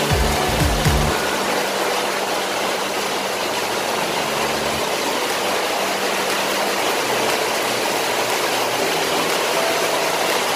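Steady rain falling: a loud, even hiss.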